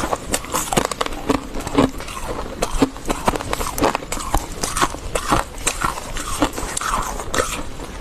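Dry freezer frost crunching as it is chewed, close to a clip-on microphone: a rapid, irregular run of crisp crackles.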